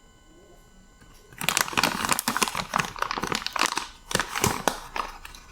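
Plastic packaging crinkling and rustling in quick irregular bursts as it is handled, starting about a second and a half in.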